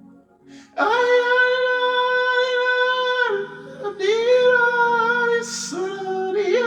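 A woman singing long held notes, with short slides between them, over a soft low sustained accompaniment.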